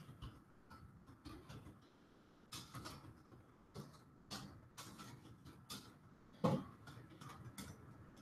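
Faint, irregular clicks of a computer keyboard being typed on, with one louder knock about six and a half seconds in.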